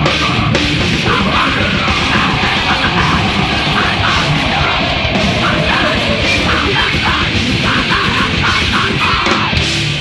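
Hardcore punk band playing fast and loud, with heavily distorted guitars, pounding drums and screamed vocals.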